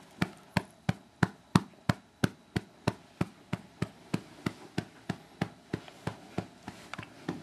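A hand patting a baby's back in a steady rhythm, about three pats a second, to bring up a burp.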